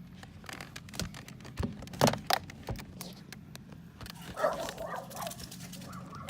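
Sharp clicks and knocks of a car door's lock and handle cables and plastic parts being handled and hooked back into place, with a short rough sound about four seconds in, over a steady low hum.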